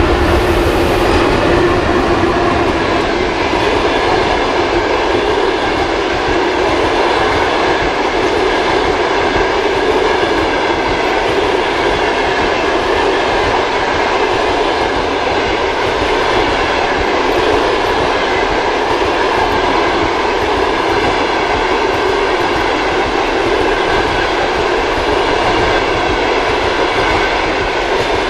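Passenger train hauled by an EP1M electric locomotive rolling past at speed: the locomotive goes by in the first seconds, then the coaches pass with a loud, steady rumble of wheels on rails.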